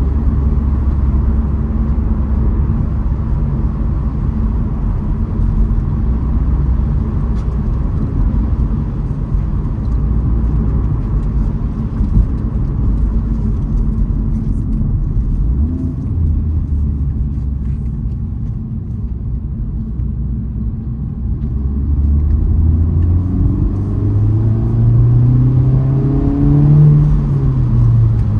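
Honda Civic Type R FL5 on the move: steady low engine and road rumble, the engine note rising as the car accelerates over the last few seconds.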